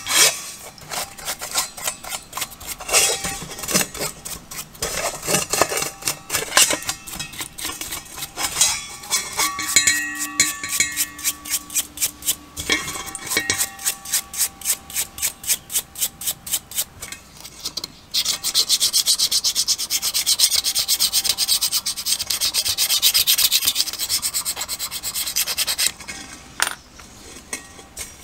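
Brush and rag scrubbing carbon off an engine piston and connecting rod in a stainless steel bowl of cleaning liquid, in rhythmic strokes of about three to four a second. About two-thirds of the way through, the scrubbing turns fast and steady, then stops briefly near the end.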